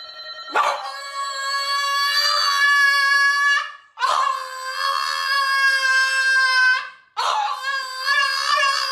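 A dog howling: three long, held howls of about three seconds each, with short breaks between them. The last one wavers in pitch.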